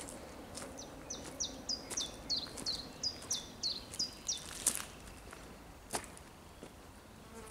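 A small songbird repeating a short, high, quickly falling call note about three times a second for a few seconds. Footsteps on a gravel and leaf path give a few crunching steps, the loudest just before and about a second after the calls stop.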